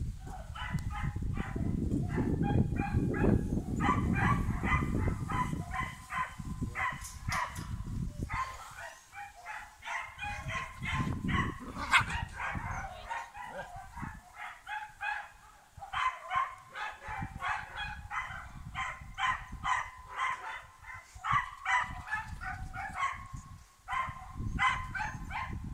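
Puppies yipping and whining in short, rapid calls. A low rumble of wind or handling on the microphone runs under them for the first third and again briefly near the middle.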